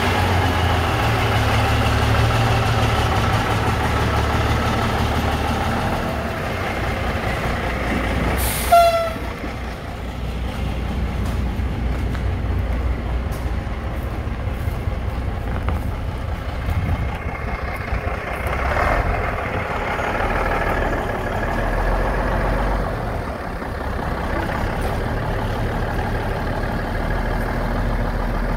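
Grain truck's engine running steadily as the truck pulls out. About nine seconds in there is one sharp, loud hiss with a brief whistling tone.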